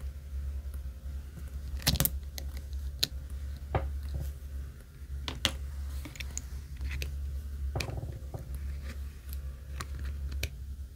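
Scattered light clicks and taps from handling a disassembled iPhone 16 Pro, its back glass and titanium frame, on a silicone repair mat, over a steady low hum. The sharpest click comes about two seconds in.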